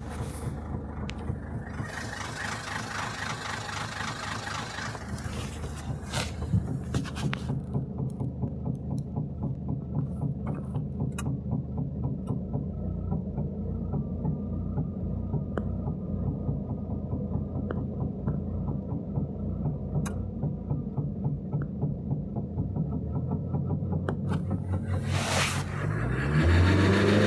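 Toyota Etios 1.4 diesel engine running at idle with an uneven beat and irregular knocks, which the owner takes for a misfire. A hiss sits over it for the first several seconds. Near the end the engine is revved up and falls back.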